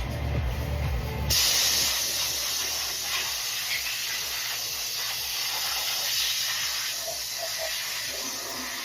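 A steady hissing spray starts suddenly about a second in and keeps on, cleaning grime off a Ford 3.5 EcoBoost engine.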